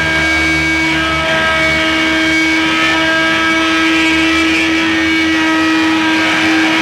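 Live rock band in a noise passage: distorted electric guitars holding several steady, sustained tones over a low drone, loud and unbroken.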